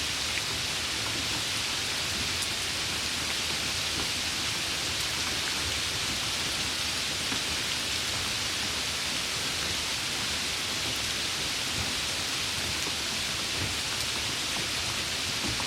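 Light rain falling, a steady even hiss of drops with faint scattered ticks.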